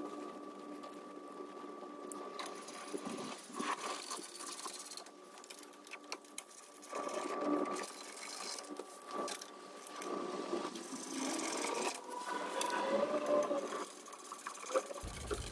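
Hand ratchet with a 10 mm socket clicking in quick runs as bolts are driven into the underside of a front bumper, with louder runs about halfway through and near the end. A faint steady hum sits behind it.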